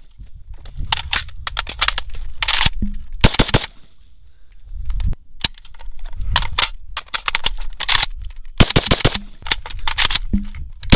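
Rifle Dynamics 704M AK-pattern rifle firing 7.62x39 in quick strings of several shots each, with short pauses between the strings.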